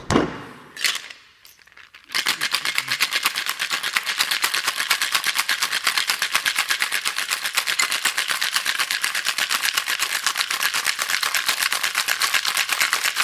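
Ice cubes rattling in a metal tin-on-glass cocktail shaker being shaken hard to chill the drink: a fast, even rattle that starts about two seconds in and goes on, after a couple of knocks as the shaker is sealed.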